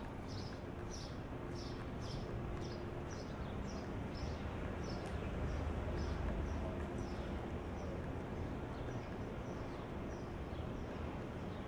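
A small bird chirping over and over, short high falling notes about two a second that fade away near the end, over a steady city traffic rumble that swells about halfway through as a vehicle passes.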